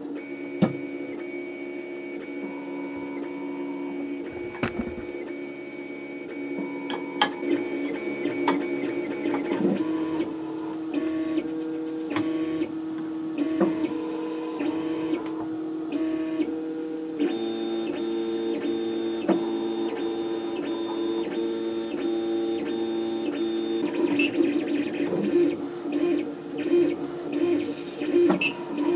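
Stepper motors of a homebuilt 3D printer whining as it prints, their tones stepping to new pitches every second or few as the head changes direction and speed, with scattered sharp clicks.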